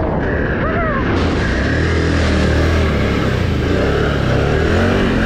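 Can-Am Renegade XMR 1000 ATV's V-twin engine running steadily as the quad drives through a flooded, muddy trail. From about a second in, a hiss of tyres churning through mud and water joins it.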